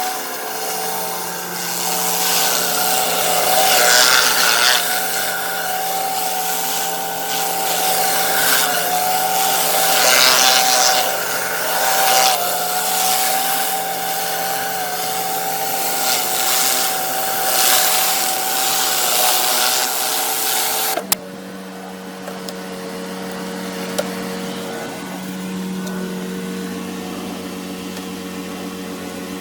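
Pressure washer running with a concrete surface cleaner spraying, a loud hiss of water that swells and fades over the steady note of the engine and pump. About two-thirds of the way through the spray cuts off suddenly, leaving the engine running on alone.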